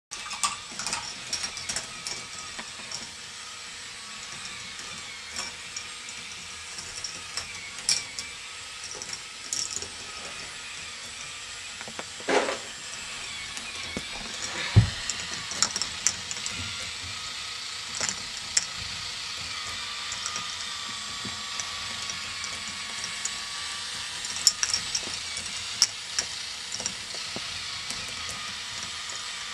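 K'nex ball machine running: the plastic lifts' motors and gears whir steadily while plastic balls click and clatter along the tracks. There is a louder knock about halfway through.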